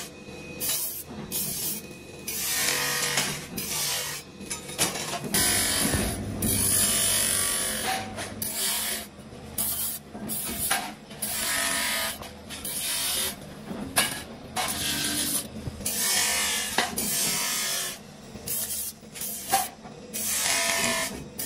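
Steel trowel blade being ground on an abrasive sanding drum spun by an electric motor. A harsh sanding hiss comes in repeated bursts of a second or two as the blade is pressed on and lifted off.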